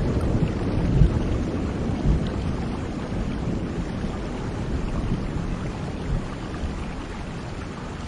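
Steady rain falling with a low thunder rumble that dies away over the first couple of seconds, leaving the even hiss of the rain.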